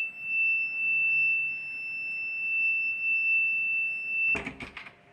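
Buzzer of a home-made infrared beam alarm sounding one steady high-pitched tone, which cuts off sharply after about four seconds, followed by a few clicks and rattles.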